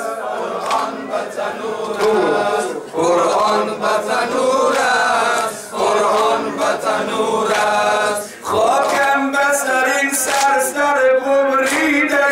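A man chanting a Persian noha (Shia mourning lament) unaccompanied into a microphone, in long sung lines with a short break about eight seconds in; other male voices join in the chant.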